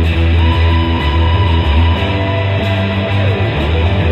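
Rock outro music with guitar over strong, steady bass notes, with a few sliding guitar notes in the second half.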